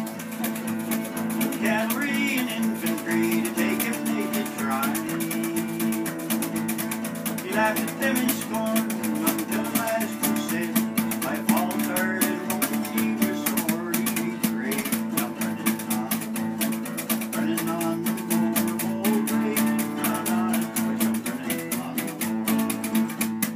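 Acoustic guitar strummed steadily through an instrumental stretch of a folk song, with a fast, even clicking percussion keeping time along with it.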